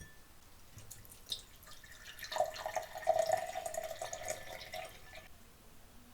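Water running in a thin stream with small trickling ticks, starting about two seconds in and stopping about five seconds in.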